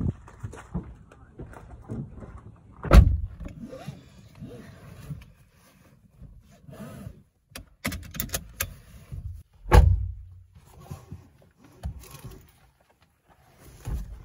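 A car door shutting with a heavy thump, then rustling and small clicks as the seat belt is pulled across and buckled, and another heavy thump a few seconds later.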